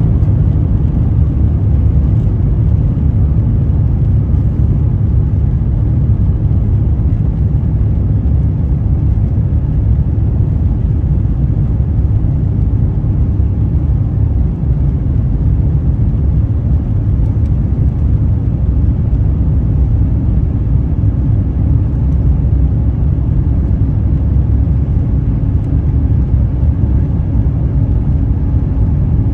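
Steady low rumble inside the cabin of an Airbus A350-1000 taxiing, from its Rolls-Royce Trent XWB-97 engines at low taxi power and the aircraft rolling along the taxiway, with a faint steady hum above it.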